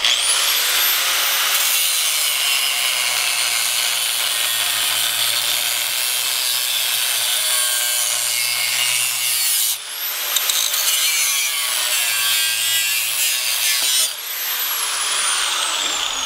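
Angle grinder cutting across the steel shell of an air-conditioner fan motor. The grinder whines up to speed at the start and the disc grinds steadily through the metal. It dips and spins up again about ten seconds in, and from about fourteen seconds the motor winds down with a falling whine.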